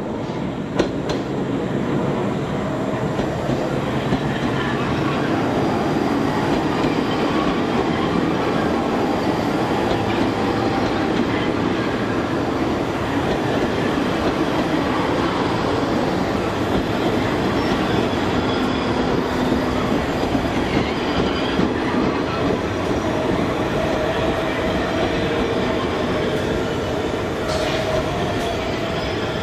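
New York City Subway train running on the rails: a steady, loud rumble of wheels on track, with a sharp click about a second in.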